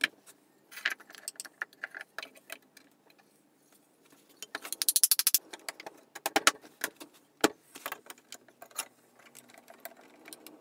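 Oak frame parts knocking and clicking against each other and the workbench as a table frame is dry-fitted by hand. About halfway through there is a short, fast run of rattling clicks, and about two seconds later one sharp knock stands out.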